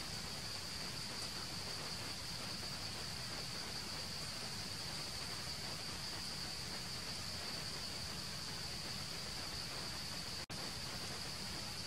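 Steady insect drone: an even, high-pitched buzz over a hiss of outdoor background noise. The sound cuts out for a split second near the end.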